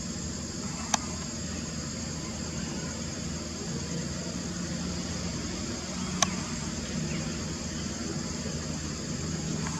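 Outdoor ambience: a steady high insect drone over a low rumble, with two sharp clicks, one about a second in and one about six seconds in.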